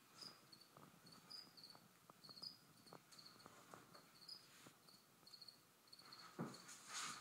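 Faint chirping of a cricket, short high chirps repeating about two to three times a second. Near the end a louder rustle and knock covers it.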